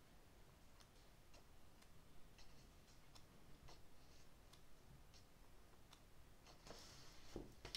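Near silence with faint, scattered soft ticks and a brief paper rustle near the end as the pages of a paperback guidebook are turned one after another.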